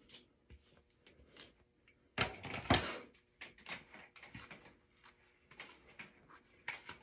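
Hair being handled and run through a flat iron: soft rustles and small clicks, with a louder rustling noise about two seconds in.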